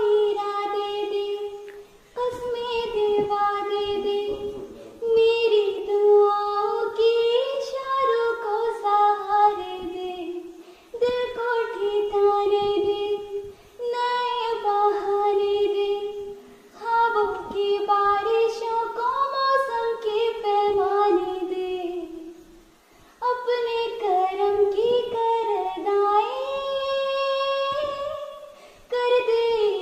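A high female voice singing a Punjabi song unaccompanied, in long held phrases a few seconds apart with short breaths between them.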